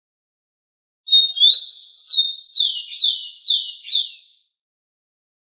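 Rufous-collared sparrow (tico-tico) singing one song: a short level whistle and a rising note, then five clear whistled notes, each sliding down in pitch, about two a second.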